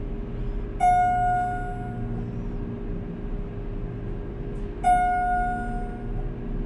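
Elevator chime sounding twice, about four seconds apart, each a single ding that rings and fades over about a second. Under it, the steady hum of a Schindler MT/300A hydraulic elevator car travelling up.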